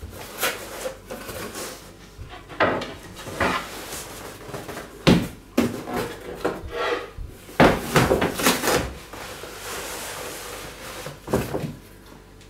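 Large corrugated cardboard box being handled, folded and slid across a bench: irregular scrapes, rustles and hollow knocks of cardboard, loudest about five seconds in and again near eight seconds.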